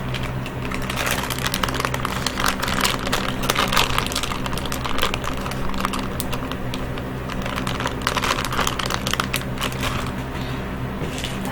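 Plastic packaging of soft plastic fishing baits being handled and opened: dense, irregular crinkling and clicking, over a steady low hum.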